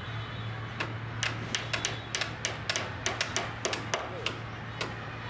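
A run of sharp, irregular taps, about twenty, at roughly four to six a second and thinning out near the end, over a steady low hum.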